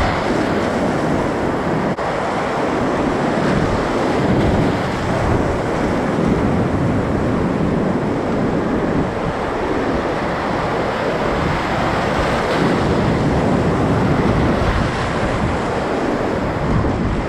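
Whitewater rapids rushing loudly and steadily around a kayak running a steep mountain creek.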